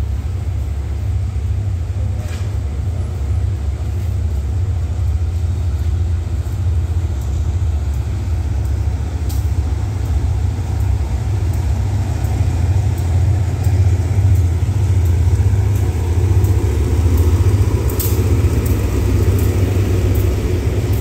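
Diesel train's engine running with a steady low rumble that slowly grows louder, with a few faint sharp clicks.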